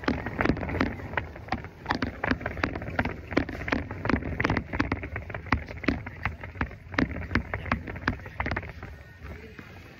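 Repeated knocks and rustling, about two to three a second, from a workout on a gym cardio machine with a hand-held phone.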